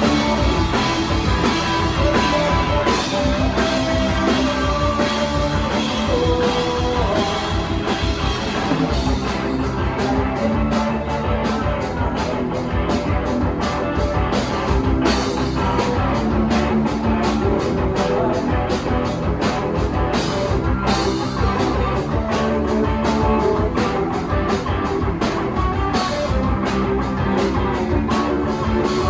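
Live rock band playing a song on electric guitars, bass and drum kit, loud and steady; from about nine seconds in, the drums settle into a fast, even beat.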